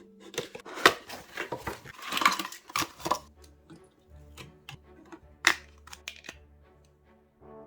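Sharp clicks and knocks of computer parts being handled and fitted, with a short rustle about two seconds in, over quiet background music.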